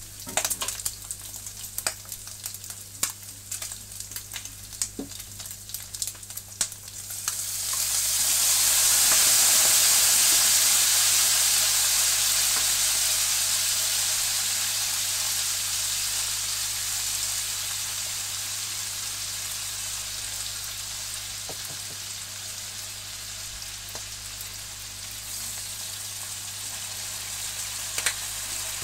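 Chicken skin frying in a nonstick pan: the fat crackles and spits with sharp pops for the first several seconds, then a much louder sizzling hiss rises about seven seconds in and slowly dies away, with one more pop near the end.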